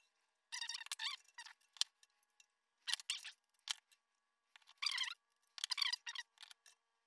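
Brass water-heater temperature-and-pressure relief valve being turned in its threaded tank port with pliers: a string of short, high-pitched squeaks, about one every second, as the valve is snugged and straightened.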